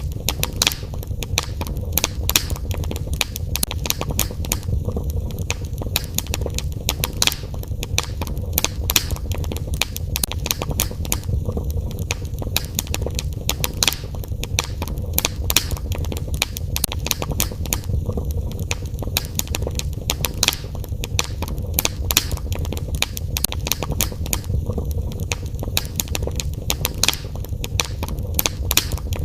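Wood fire crackling in a fireplace: frequent sharp pops and snaps, irregular and several a second, over a steady low rush of the flames.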